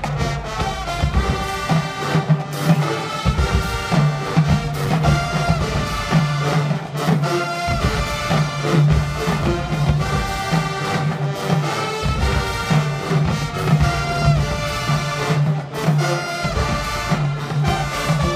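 High school marching band playing a brass-led tune over a steady beat.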